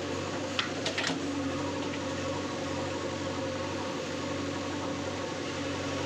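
JCB backhoe loader's diesel engine running steadily as the backhoe works its bucket in a pit of soil and broken brick, with a few short clatters about a second in.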